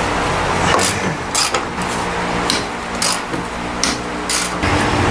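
Metal tools working on a car's suspension during a strut swap: about seven sharp metallic clicks and clanks over a steady mechanical hum.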